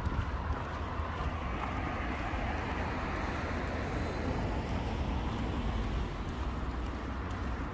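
Steady background noise of distant road traffic, an even hum with a low rumble and no distinct events.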